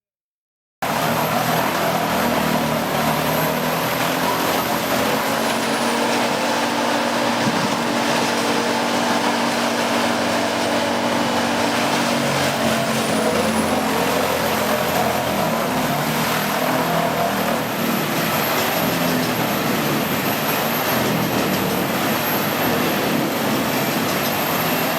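Large wood chipper running steadily under load: a heavy engine drone mixed with grinding noise and a thin high whine. It cuts in abruptly about a second in.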